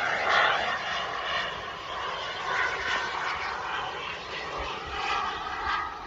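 Kingtech K210 microturbine of a Skymaster MiG-29 radio-controlled jet in flight: a steady jet rush with a faint whine that drifts in pitch as the model passes.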